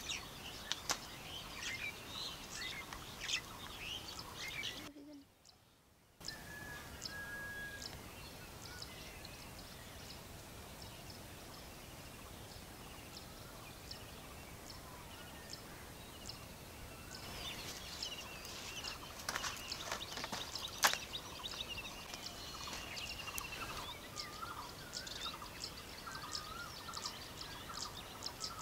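Small birds chirping and calling over farmland, with scattered sharp clicks and rustles as a sickle cuts bottle gourd vine tips; the clicks are busiest about two-thirds of the way through.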